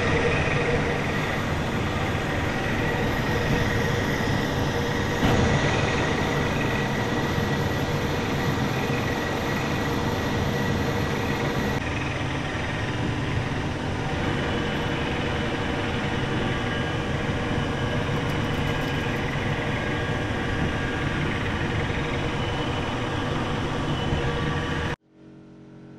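Harrison metal lathe running steadily while screw-cutting a thread on a steel shaft, with a single knock about five seconds in. The running noise drops away abruptly near the end.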